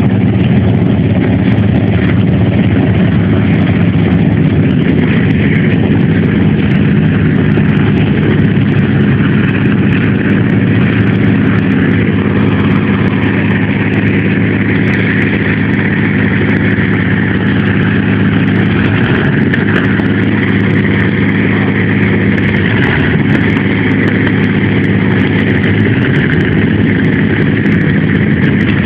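Rolls-Royce Merlin V12 aero engine running steadily and loudly, without any clear revving up or down.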